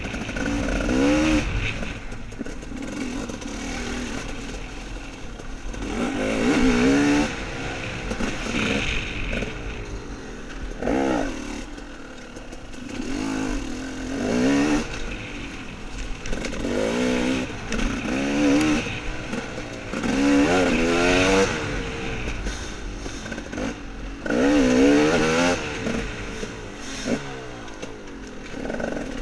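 Dirt bike engine revving up and easing off again and again as the throttle is worked along a woods trail, with a steady rush of noise underneath.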